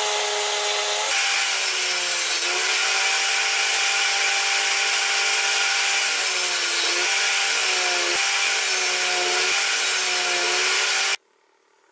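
Benchtop table saw running and cutting fir boards, ripping along the fence and then crosscutting on a sled. Its steady whine dips in pitch several times as the blade bites into the wood, and the sound cuts off abruptly near the end.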